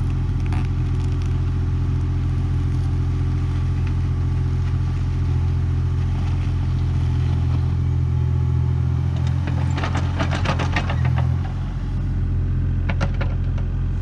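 Kubota KX040 mini excavator's diesel engine running steadily under hydraulic load as the grading bucket works soil. About ten seconds in comes a quick clatter of rapid clicks, with a few more near the end.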